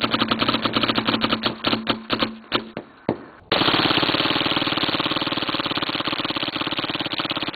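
Autococker paintball marker firing on full auto: a rapid string of shots that slows, spaces out and stops about three seconds in. About half a second later another fast, unbroken burst starts suddenly and keeps going.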